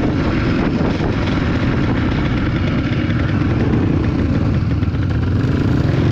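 Off-road dirt bike engine running steadily.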